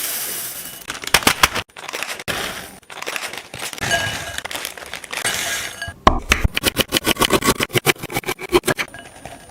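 Kitchen food-prep sounds: crackling and snapping of something crisp being broken, then about halfway through a quick, even run of sharp clicking strokes, about eight a second, for some three seconds.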